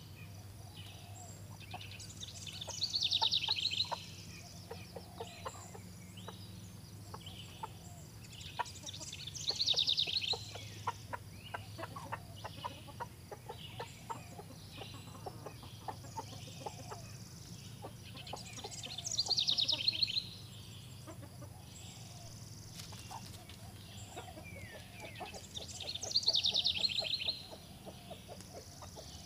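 A flock of chickens clucking and pecking, with four loud, drawn-out high calls spaced several seconds apart. A steady low hum runs underneath.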